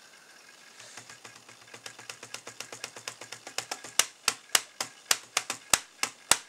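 Rapid, regular clicking from a Dell Latitude C600 laptop, about four clicks a second, growing louder and sharper from about four seconds in, while the slow Windows 2000 Programs menu loads.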